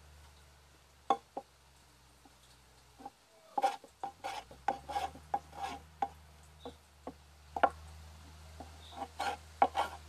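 Hand plane pushed along a wooden board, its blade shaving the wood in short, irregular scraping strokes. A low steady hum runs underneath.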